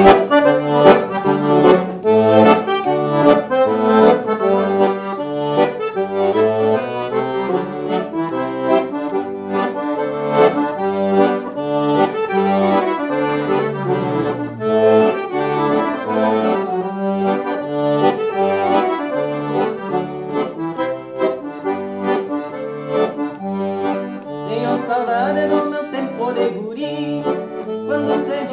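Solo piano accordion playing a classic gaúcho tune as an instrumental: a quick-moving melody over a steady bass accompaniment.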